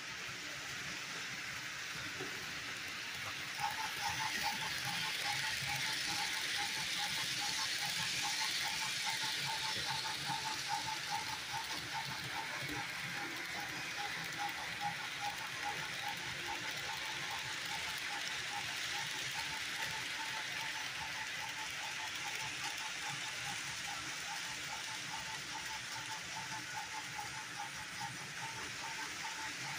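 HO scale Bachmann model trains running on sectional track: a steady whirring hiss of the small electric motors and wheels on the rails. A rapidly pulsing whine comes in a few seconds in and keeps going.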